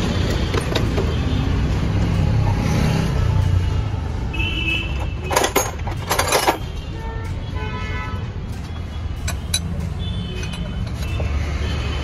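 Steady rumble of passing street traffic. About five seconds in come two short bursts of metal clatter as spanners are rummaged in a plastic tool crate, and a few lighter clinks follow near the end.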